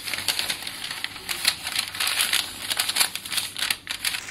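A sheet of paper food wrap crinkling and rustling in irregular crackles as hands fold it over a pile of roasted nuts.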